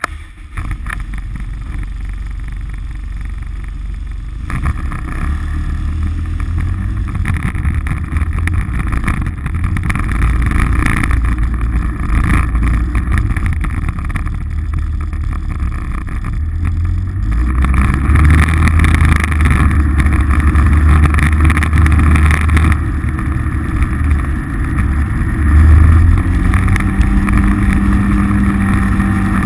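Polaris RZR side-by-side's engine running, heard from a hood-mounted camera as the machine pulls away and drives on. The engine drone grows louder in steps as it picks up speed.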